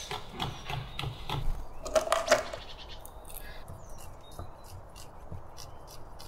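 Chef's knife chopping on a wooden cutting board: sharper knocks of the blade in the first half, then a quick run of light taps, about four or five a second, as spinach leaves are finely sliced.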